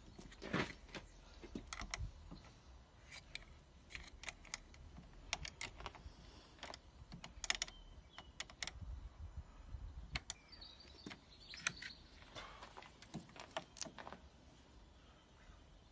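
Irregular light clicks and taps of hand tools and parts being handled during a battery replacement, with a brief scraping rub about ten seconds in.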